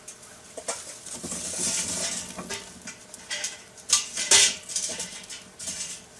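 Lit charcoal briquettes poured from a metal chimney starter into a Big Green Egg's ceramic firebox: a sliding rush of coals, then several clattering knocks of coals and metal chimney, the loudest about four seconds in.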